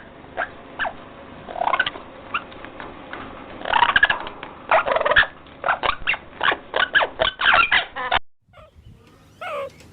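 A bird's short repeated calls, scattered at first and then coming in a quick run, stopping abruptly near the end before different bird calls begin.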